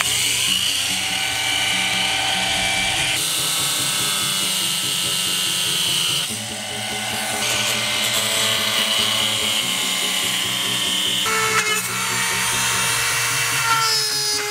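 Small cordless cut-off tool with an abrasive disc running at high speed, a high-pitched whine as it cuts slots through the Corvette's rear decklid panel. The whine changes pitch abruptly a few times. Near the end comes the higher whine of a Dremel rotary tool.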